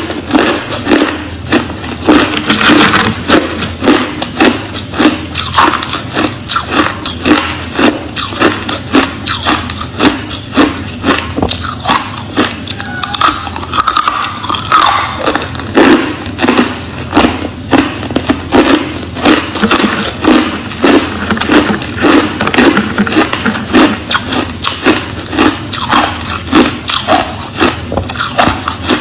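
Crushed ice being bitten and chewed close to the microphone: a steady run of loud, sharp crunches, about two a second.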